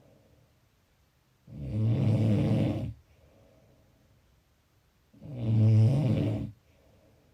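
Snoring: two long, low snores, each about a second and a half, roughly four seconds apart.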